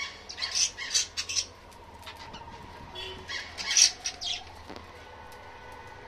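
Budgerigars calling in two quick bouts of short, high chirps: one in the first second and a half, the other starting about three seconds in.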